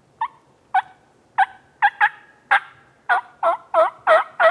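Series of turkey yelps, about eleven notes, spaced out at first, then coming faster and louder.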